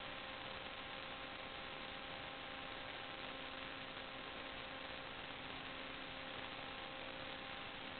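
Steady faint hiss with a thin electrical hum, unchanging throughout: the self-noise of a sewer inspection camera's recorder.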